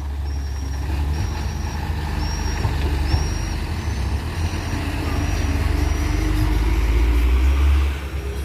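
Komatsu PC200 excavator's diesel engine running with a steady low rumble that builds louder under load toward the end, then eases off. A short high squeak repeats about every two-thirds of a second for the first several seconds.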